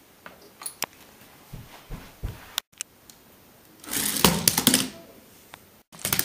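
Lego car rattling and clattering across a hardwood floor, a loud burst of rapid clicks lasting about a second, then a shorter clatter as it hits the baseboard near the end. Softer clicks and low thumps come before it.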